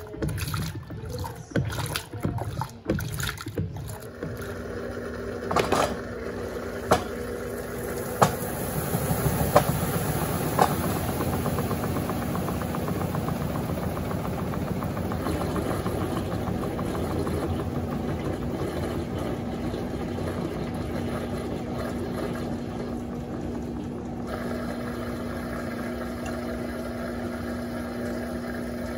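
Electrolux Turbo Compacta top-loading washing machine. For the first few seconds there is irregular sloshing, then several sharp clicks, and then a steady motor hum takes over for the rest.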